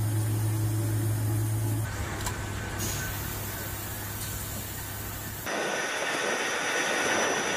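Steady machinery noise on an airfield flight line, changing abruptly at each cut. A deep hum is strongest in the first two seconds. From about five and a half seconds it gives way to a hissing rush with a thin high whine.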